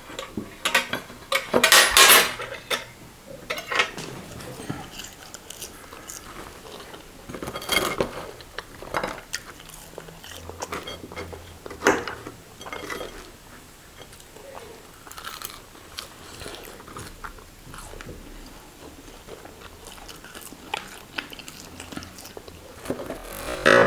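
Close-up eating sounds: chewing and biting of fried potatoes and fried beef, with scattered short clicks and knocks from plates and cutlery, the loudest cluster about two seconds in.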